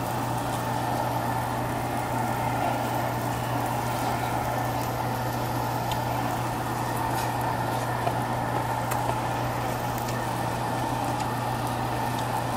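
Pork sizzling on a coal-briquette (yeontan) tabletop grill, a steady hiss with scattered small pops, over a constant low hum.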